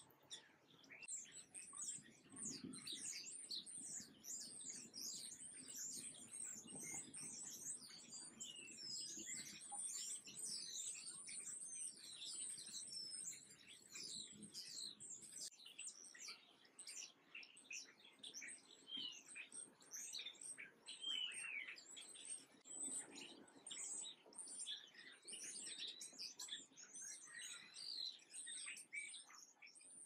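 House finches and sparrows chirping and twittering in a dense, overlapping chorus of short, high calls and quick falling notes.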